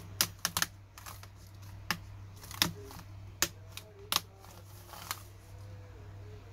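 Keys on the freshly fitted replacement keyboard of an HP EliteBook 840 G3 laptop being pressed one by one to test them: scattered sharp key clicks at an uneven pace, some in quick pairs.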